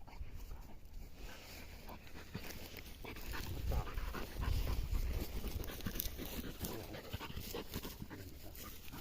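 English pointer panting hard, with rustling and crackling of movement through cover. A low rumble swells in the middle, loudest about four to five seconds in.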